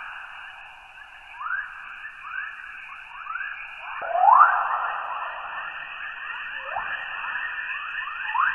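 Earth's 'chorus': electromagnetic plasma waves in the planet's radiation belts, recorded by radio instruments and turned into sound. It is a dense run of rising chirps, many overlapping over a steady hiss, with the loudest sweep about four seconds in.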